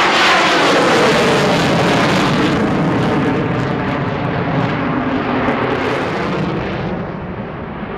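Jet aircraft flying past, a loud engine roar that is loudest at the start, drops in pitch and fades gradually as it moves away.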